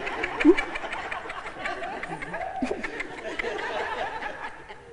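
Congregation laughing and chattering, many voices overlapping, fading toward the end.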